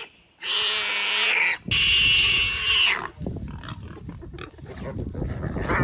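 Loud, harsh animal squealing in two long cries of about a second each, both starting and stopping abruptly, followed by a quieter low rumble.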